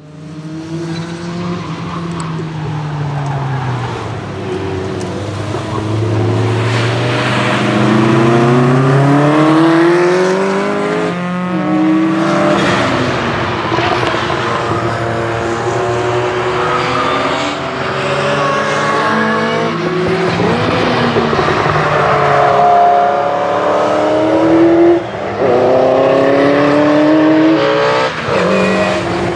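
Ferrari F40 GT's 2.9-litre twin-turbocharged V8 engine under hard acceleration on a race track, its pitch climbing and dropping back at each gear change, over and over.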